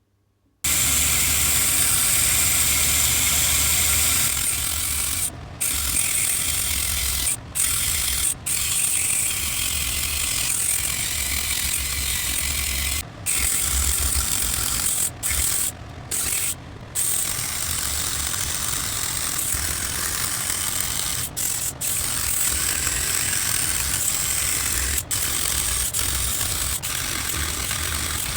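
Power tool sanding the aluminium radiator subtank of a Mazda RX-7 FD3S: a steady, loud hiss over a low motor hum that starts about half a second in and breaks off briefly several times.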